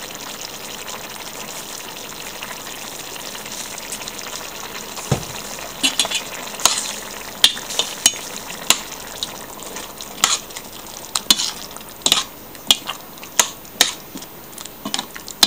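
Tomato sauce sizzling and bubbling in a stainless steel pot, with a steady hiss. From about six seconds in, a metal spoon stirs it, clinking against the pot about once or twice a second.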